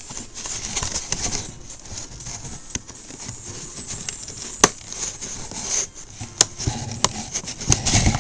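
Scissors cutting and scraping at packing tape on a product box, with rustling of the packaging. Several sharp clicks from the blades through the middle, and a louder knock just at the end.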